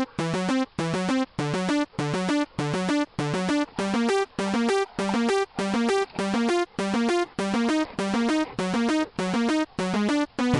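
Electronic synthesizer background music: stepping chord patterns played in short, evenly spaced blasts, a little under two a second.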